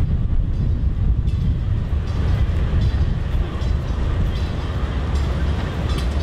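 Diesel locomotive running with a steady low rumble.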